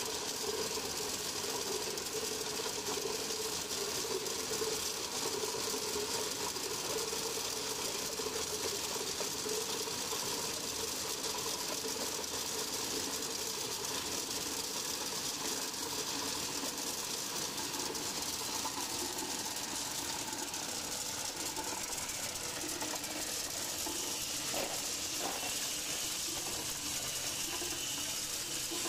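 Tube ice machine running during its ice harvest: a steady mechanical hum from its Bitzer piston compressor and air-cooled condenser fans, over a continuous clatter of 22 mm ice tubes sliding out of the stainless discharge chute into a plastic basin.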